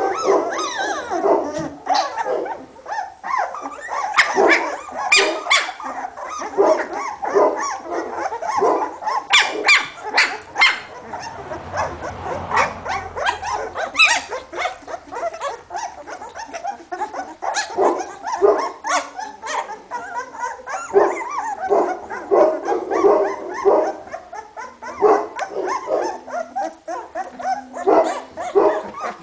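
A litter of two-week-old hovawart puppies crying almost without a break: many short, high, overlapping squeaks and whines.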